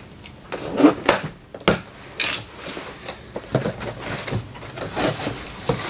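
Sellotape on a cardboard box being slit with a box cutter and the flaps pulled open: a few sharp rips and scrapes in the first two and a half seconds, then softer rustling and clicking of the cardboard.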